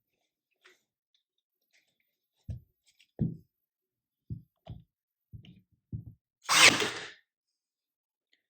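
A few light knocks as a thin wood strip is handled into place, then about two-thirds of the way in a single loud shot from a Ryobi 18-gauge nail gun driving a 25 mm nail into the strip.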